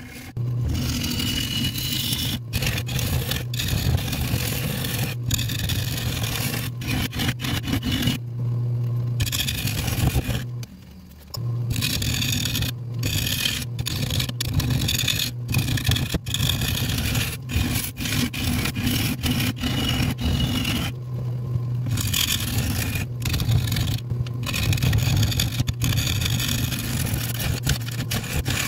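Turning gouge cutting a spinning acacia bowl blank on a Nova 3000 wood lathe: rough, uneven scraping as the tool bites the wood, over the lathe's steady low hum. The cut breaks off briefly several times, with the longest gap about ten seconds in. The blank is still being trued and is not yet balanced.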